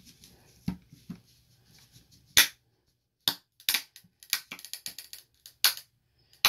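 Hard plastic Beckett (BGS) graded-card case being pried open with a flathead screwdriver: a run of sharp cracks and snaps as the sealed seam gives way. The loudest snap comes about two and a half seconds in, and the cracks come quickly one after another through the second half.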